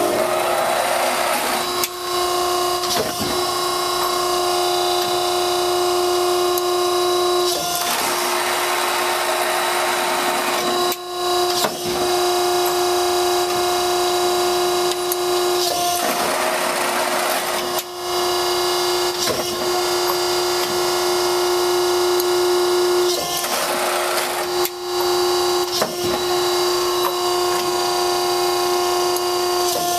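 A 1986 Wysong 20-ton Hydra-Mech press brake running under power, its motor and hydraulic pump giving a steady hum. About every eight seconds a rush of noise lasting a second or so comes through as the machine cycles.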